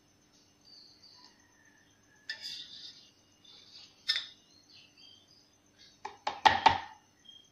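Steel spoon clinking and scraping against a steel pan and a plastic bowl as thick milk cream is skimmed off and dropped into the bowl. A few scattered clinks, then a quick run of knocks near the end, the loudest.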